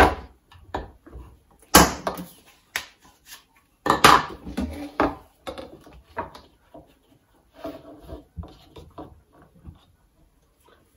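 White plastic pipes handled on a wooden chopping board: sharp knocks as they are set down and shifted, the loudest at the start and about two and four seconds in, followed by lighter taps and rubbing that die away near the end.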